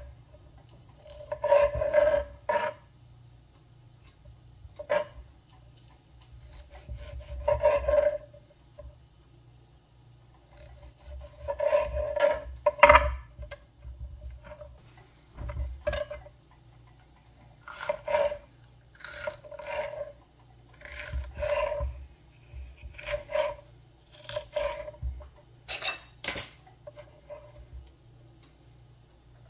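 Food-preparation scraping: about a dozen short rasping, rubbing strokes, irregularly one to three seconds apart, with light clicks and clinks of a utensil among them.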